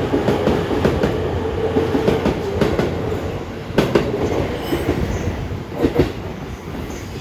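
E257 series 2000 electric multiple unit passing at speed, its wheels clattering over rail joints, with a steady tone underneath. Loud clacks come in pairs as each bogie's two axles cross a joint, twice near the middle, and the sound fades toward the end as the last cars go by.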